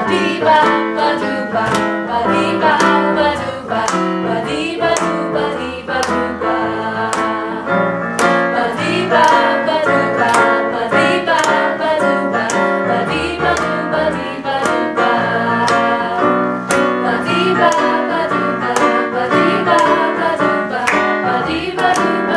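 A small group of young voices singing a song together, accompanied on a digital piano, with a steady beat of sharp strikes.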